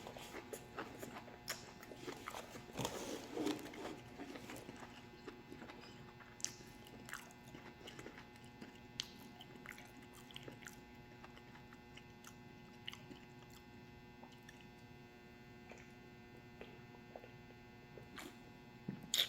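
Close-up chewing and biting of food, with small wet clicks that come thickest in the first four seconds, then thin out to occasional clicks. A steady electrical hum runs underneath.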